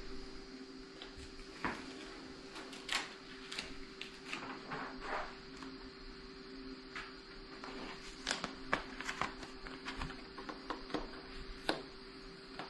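Faint, scattered clicks and rubbing of hands handling a skateboard deck with freshly applied grip tape, over a steady low electrical hum.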